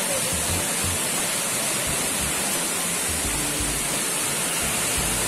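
Waterfall pouring down a rock face: a steady, loud rushing.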